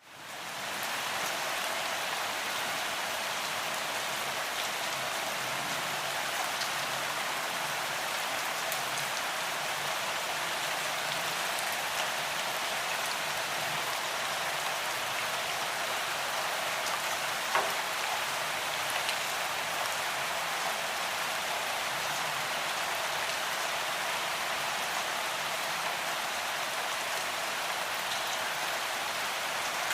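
Gentle rain falling steadily, a dense even patter of drops that fades in at the very start. A little past halfway there is one sharp, louder drop tap.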